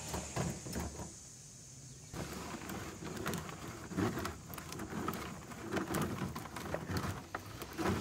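Compost being scraped back and forth over a wire-mesh sifting screen with a small wooden board: irregular scraping, rustling and crunching of clumps and twigs on the hardware cloth, with a quieter lull about a second in.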